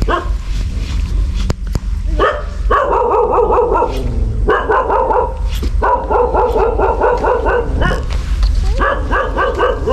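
Dogs barking in fast runs of barks, starting about two seconds in, with short pauses between the runs.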